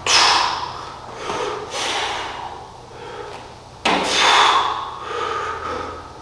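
A person breathing hard close to the microphone: sharp, loud, forceful exhalations about every one to two seconds, the breathing of someone straining through repetitions of a heavy lift.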